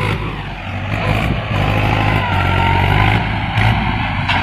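Farm tractor's diesel engine running steadily as it pulls a trailer load.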